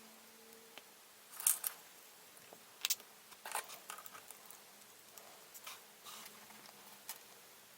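Short, sharp clicks and snips, about six at uneven intervals, from the hard plastic parts of a model kit being cut and fitted together by hand. A faint steady hum lies underneath.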